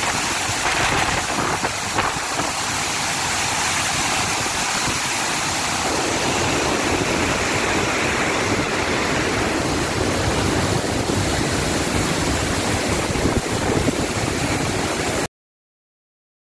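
Floodwater torrent rushing over a railed road and pouring down a rocky slope: a steady, loud rush of water. It cuts off abruptly to silence about a second before the end.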